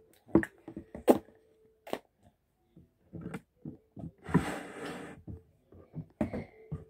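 Makeup items handled on a tabletop: scattered light clicks and knocks as a brush and plastic palette are put down and a small case is picked up, with a brief rustle about four seconds in.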